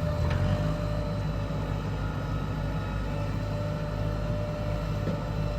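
Heavy diesel engine of earthmoving machinery running steadily: a low drone with a thin steady whine above it and a couple of faint knocks.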